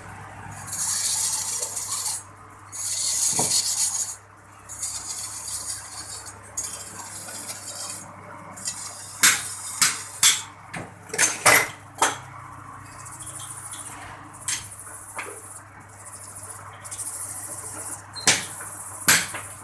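Metal clattering and scraping from hand work on tractor engine parts: a few stretches of rasping scraping, then a run of sharp metallic clinks and knocks, and two more near the end.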